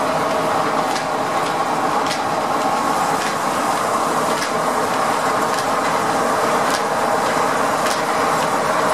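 A single-cylinder steam engine and its flat-belt drive running a sawmill, with no log being cut: a steady mechanical hum with constant tones and short clicks about once a second at irregular spacing.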